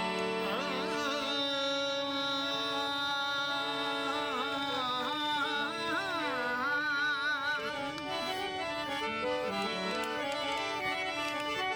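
Rajasthani Manganiyar folk music: a harmonium plays a stepping melody of held notes while a voice sings a long, ornamented line with heavy vibrato, which fades out about eight seconds in.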